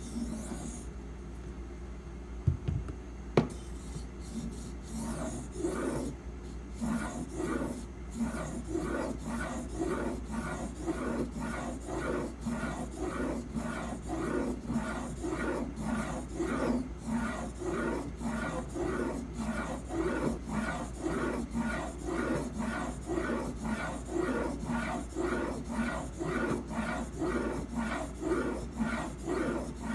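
A steak knife's edge being ground on a sharpening stone held in a guided angle clamp: steady back-and-forth strokes, about two a second, starting a few seconds in after a couple of light clicks.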